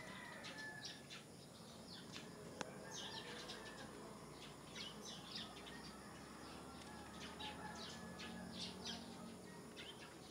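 Small birds chirping: many short, high chirps, with a single click about two and a half seconds in.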